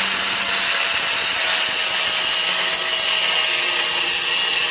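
Angle grinder running at speed with its disc held flat against the edge of a steel log-splitter blade, grinding the cutting edge smooth. It makes a steady whine over a grinding rasp.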